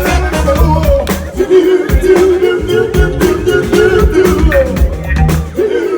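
Live band playing a Motown-style song: singing over bass, drums and guitar with a steady beat.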